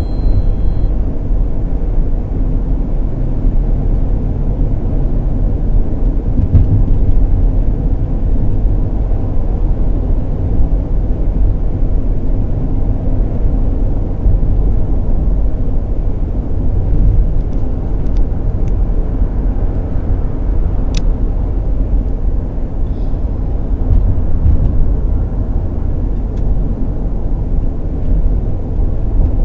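Steady low rumble of a moving van's engine and tyres at highway speed, heard inside the cab, with a faint tick about two-thirds of the way through.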